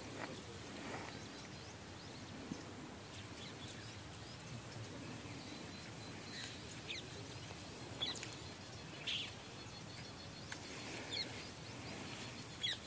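Faint steady background hiss with scattered short, high bird chirps, most of them in the second half.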